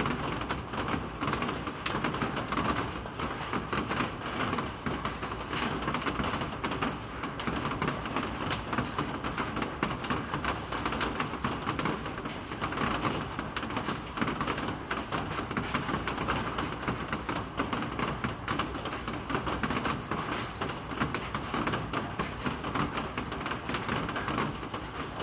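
Steady rain falling, a dense, even patter of countless drops.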